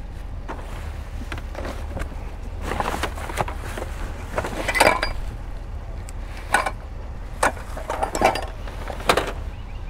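Hands rummaging through a box of discarded household items: cardboard and plastic bags rustling, with a handful of sharp clinks and knocks as hard plastic pieces are moved. A steady low rumble runs underneath.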